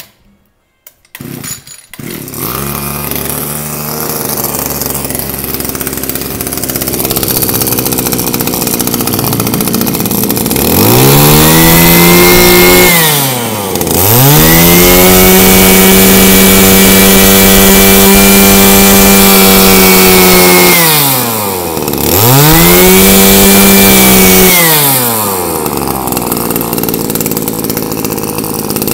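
Stihl FS26 brush cutter's 26 cc two-stroke engine catching about two seconds in and idling, then revved up three times, the middle rev held for about seven seconds, before settling back to idle near the end. It runs crisp and strong, a sign of a healthy engine.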